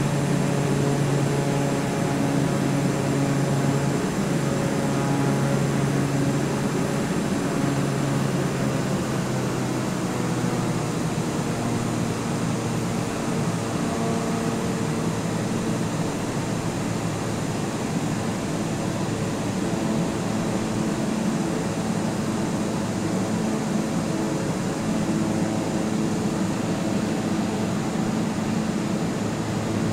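Steady engine drone over a constant rushing noise, its tones drifting slowly up and down in pitch.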